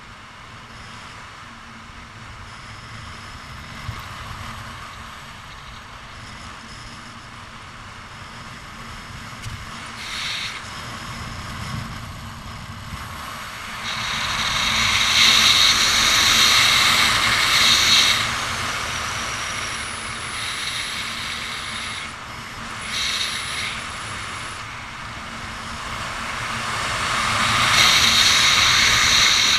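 Wind rushing over the camera's microphone under an open parachute canopy, a steady hiss that swells loud about halfway through and again near the end as the canopy is steered with the toggles.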